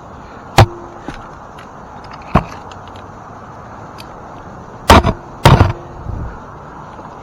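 Climbing spurs kicking into a hollow ash trunk: a few sharp, irregular knocks, several in quick succession near the end, some followed by a short hollow ring from the trunk.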